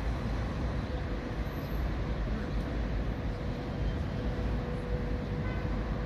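Steady street traffic noise, a constant low rumble.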